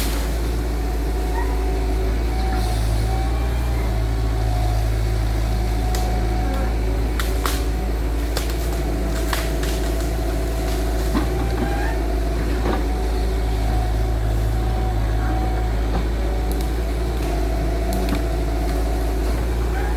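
Engine of a heavy earthmoving machine running steadily with a deep hum, with scattered clicks and knocks over it.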